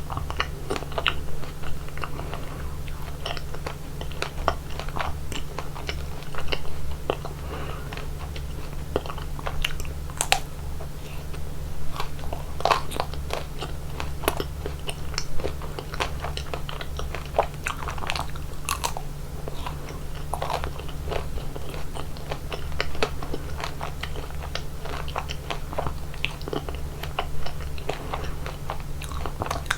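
Close-miked eating of chocolate ice cream: irregular crunchy bites and wet chewing, with a steady low hum underneath.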